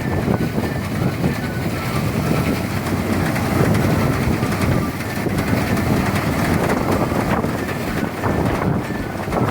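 Engine-driven rice thresher running steadily, a loud continuous clatter and rumble as the threshing drum beats paddy off the stalks.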